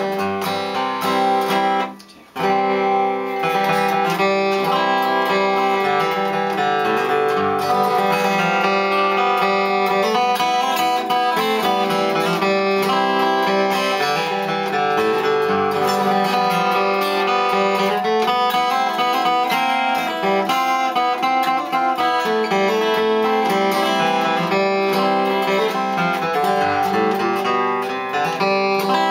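Martin D-18S mahogany acoustic guitar flatpicked solo, playing a melody with bass notes and strums, with a short break about two seconds in.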